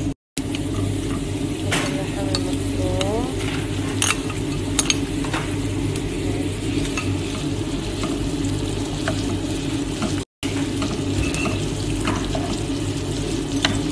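Chopped onions and mince sizzling in a nonstick frying pan while a wooden spatula stirs and scrapes, with scattered sharp clicks of the spatula against the pan. A steady low hum runs underneath. The sound cuts out completely for a moment twice, once just after the start and once about ten seconds in.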